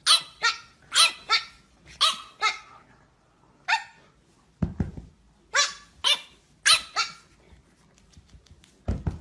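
French bulldog puppy barking in short, high-pitched yaps, mostly in pairs, about eleven in all. A dull low thump comes about halfway through.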